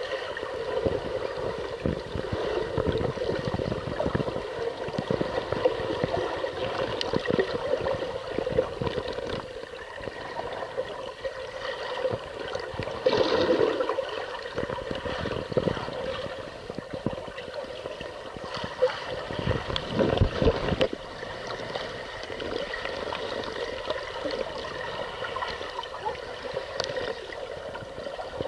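Muffled water sloshing and gurgling around an action camera held underwater, with scattered small knocks and clicks. It grows louder for a moment about 13 seconds in and again about 20 seconds in.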